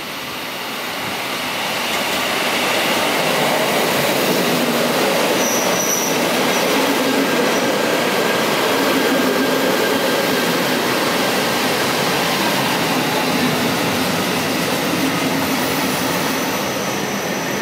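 JR Hokkaido 721 series and 735 series electric train pulling into the platform, its running noise growing louder over the first few seconds and then holding steady as the cars roll past. A brief high squeal comes about five to six seconds in.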